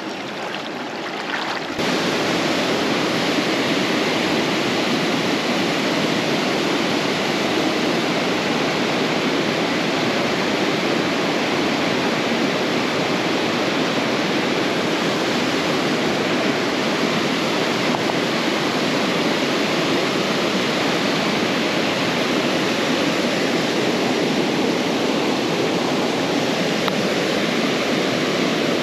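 Fast-flowing river water rushing over rocks, a steady, unbroken rush that gets louder about two seconds in.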